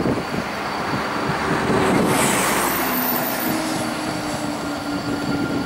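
Airbus A321-211's CFM56-5B turbofan engines running as the jet rolls down the runway: a steady roar that swells about two seconds in, with an engine tone sliding lower.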